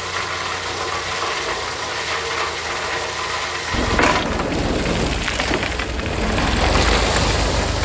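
Heavy road-work machinery running: a rough engine rumble with noise over it, the deep low rumble coming in strongly a little over halfway through.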